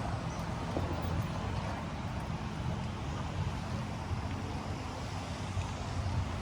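City street ambience: a steady low rumble of passing road traffic, with no single sound standing out.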